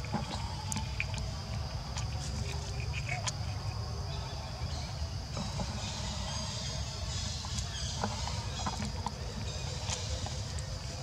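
Steady outdoor background noise: a low rumble under an even high hiss, with scattered faint clicks and ticks.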